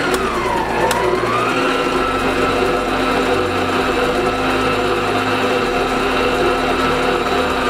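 Electric stand mixer's motor whining steadily as its dough hook mixes flour and milk. The whine dips in pitch during the first second, then rises and holds at one steady pitch.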